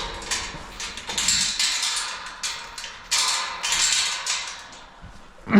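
Livestock grain rattling against metal feed pans in a string of short, noisy bursts, about one every half second to a second.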